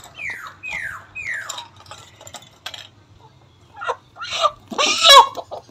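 Chickens calling: three or four short falling calls in the first second and a half, then louder harsh squawking calls near the end.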